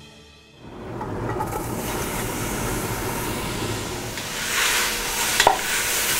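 Sliced onions sizzling as they fry in an aluminium pot, stirred with a wooden spatula. The sizzle comes in about half a second in and grows louder about four and a half seconds in, with a couple of sharp knocks soon after.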